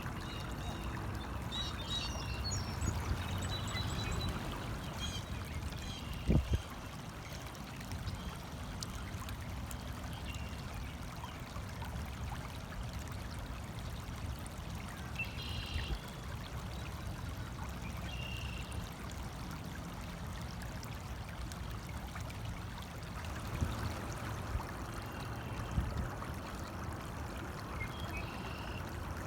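A small stream trickling and running steadily, with a few short high chirps scattered through it.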